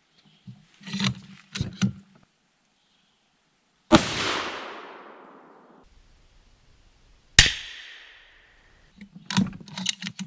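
Two rifle shots from a Savage Model 110 Precision in 6.5 Creedmoor, about three and a half seconds apart, each a sharp crack followed by an echo dying away over a second or two. Short metallic clicks of the rifle's bolt being worked come shortly before the first shot and again near the end.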